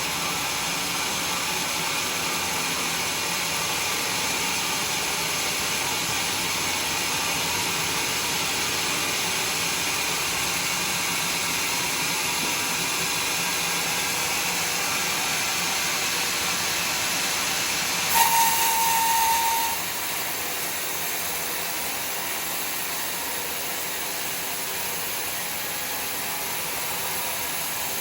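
Sawmill saw cutting a log of red bayur wood, giving a steady hissing rasp. About 18 seconds in, a brief louder whine sounds, and then the cut goes on a little quieter.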